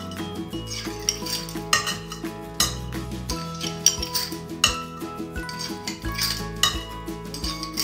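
Repeated clinks and taps of a utensil against a ceramic dish as ketchup is scraped out of a bottle, over background music.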